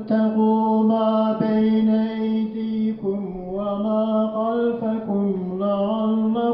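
A man reciting the Quran in the melodic chanting style, amplified through a hand microphone. He holds long drawn-out notes at a steady pitch, then about halfway through the voice drops lower and winds through ornamented turns.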